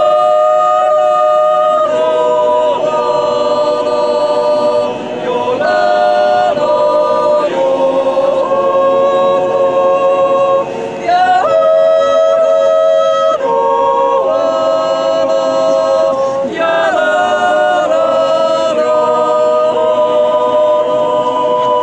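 Swiss yodel choir of men and women singing a cappella in close harmony. Long held chords come in phrases a few seconds long, with short breaks between them.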